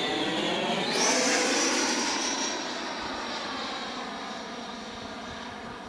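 Electric ducted fan of a Skymaster RC jet (Taiwan Tornado 120 mm fan unit) whining in flight. Its pitch jumps sharply higher about a second in, then it slowly fades as the jet moves away.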